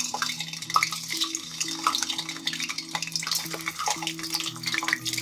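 Boiled eggs shallow-frying in hot oil, a continuous crackling sizzle, with short clicks and scrapes of a utensil moving them around the pan.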